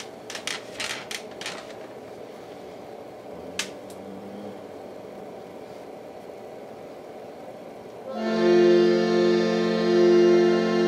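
A few clicks and a faint steady hum, then about eight seconds in a reed chord organ starts sounding a loud, sustained, reedy chord that shifts notes near the end.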